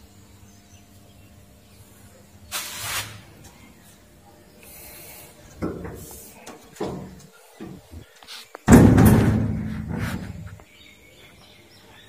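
Sheet-steel control-panel cabinet door swung shut with a loud slam about three-quarters of the way in, ringing as it dies away over about two seconds. Softer knocks and handling sounds on the cabinet come before it.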